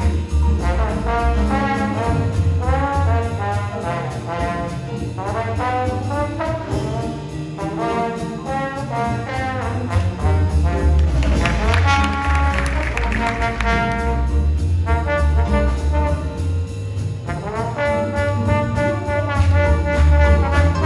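Jazz big band playing a blues: saxophone and brass sections playing ensemble phrases over bass and drums, with fuller, louder full-band passages about 11 seconds in and again near the end.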